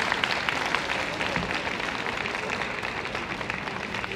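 Audience clapping, thinning out and fading away.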